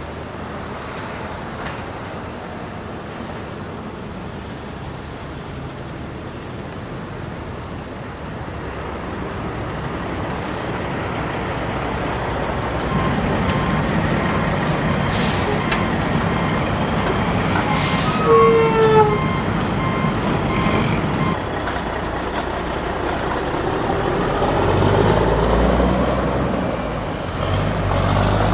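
Heavy diesel earth-moving machinery running. The engine noise grows louder about halfway through, and a brief high, falling squeal comes about two-thirds of the way in.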